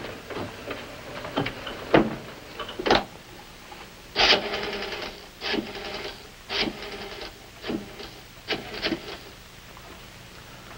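A few footsteps, then a rotary telephone being dialed: five or six short whirring runs of the returning dial, each with rapid clicking.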